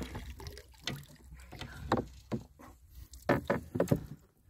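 Scattered knocks and taps against a wooden canoe, several coming close together near the end, over a low rumble.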